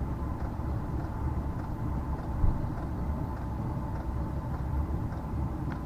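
Diesel parking heater running through its start-up, still smoking: a steady low rumble with a thin steady whine, and one short thump about two and a half seconds in.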